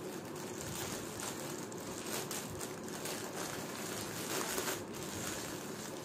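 Plastic courier packaging crinkling and rustling as the parcel is cut open with scissors and a saree in a plastic bag is pulled out, loudest about four and a half seconds in.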